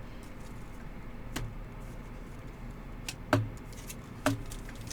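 Trading cards being handled and sorted: a few sharp light clicks and taps over a steady low hum.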